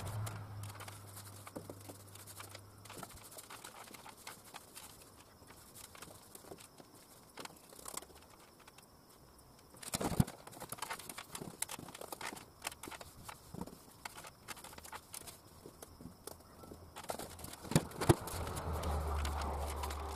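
Irregular light knocks and taps of a paintbrush working on a corrugated steel container ceiling, louder about halfway and near the end. A low hum comes in near the end.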